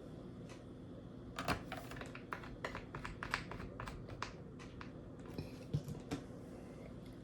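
A quick, irregular run of light clicks and taps lasting about three seconds, like keys being pressed, followed by a few louder knocks near the end.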